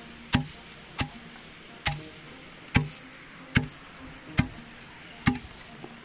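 Wooden pestle pounding adlai (Job's tears) grains in a mortar hollowed by burning into a gmelina tree trunk: about seven evenly spaced thuds, a little under a second apart. It is the traditional hand-pounding that hulls the grain into grits where there is no rice mill.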